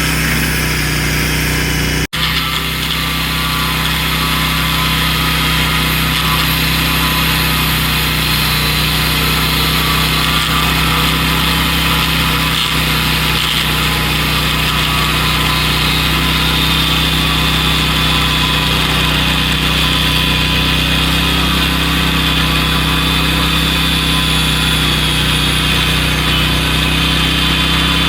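A small engine running steadily at idle, with an even hum that cuts out for an instant about two seconds in.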